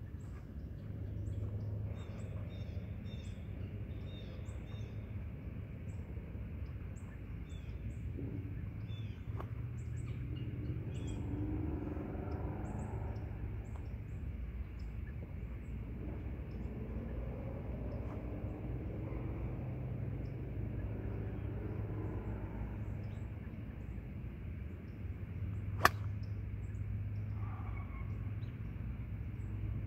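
Birds chirping over a steady low outdoor rumble; near the end, a single sharp click of a golf iron striking the ball on a full swing.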